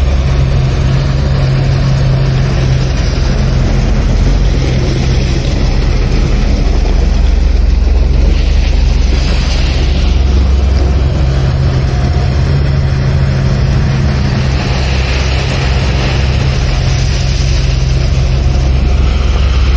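A tipper truck's diesel engine running steadily while its raised body tips out a load of crushed stone, with a hissing rush over it that swells and fades a couple of times.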